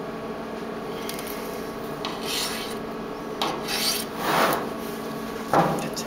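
Knife blade scraping against the cut metal lid and rim of a tin food can in several short scrapes, the loudest a little past the middle, as the lid is pried up and the blade drawn out; a knock near the end.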